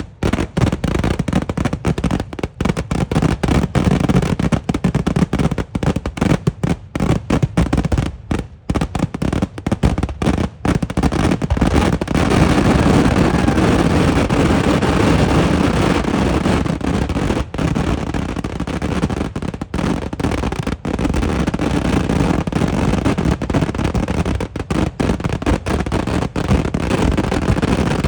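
Kerala temple-festival fireworks in an eeduvedi barrage: a rapid, unbroken string of loud explosions, so dense from about twelve seconds in that the bangs merge into one continuous din for several seconds before separating into rapid bangs again.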